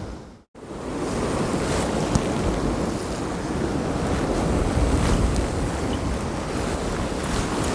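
Sea surf washing against a rocky shore, with wind buffeting the microphone; the sound is a steady rushing noise, heaviest in the low end. It drops out completely for a moment about half a second in.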